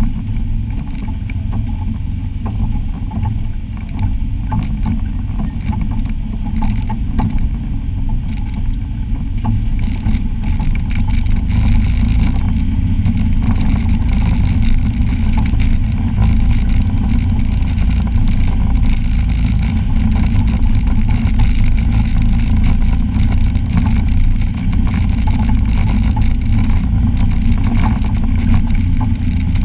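Side-by-side UTV engine running with a steady low drone as it drives a rocky trail, tyres crunching over stones and gravel. From about ten seconds in, the clicking and crackling of stones and debris under the tyres grows denser and louder.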